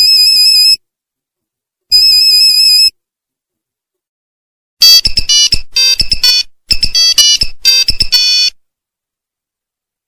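Old Nokia mobile phone monophonic ringtones: two long beeps on the same steady pitch about two seconds apart, then a quick tune of short beeping notes, one short phrase repeated about four times, lasting around four seconds.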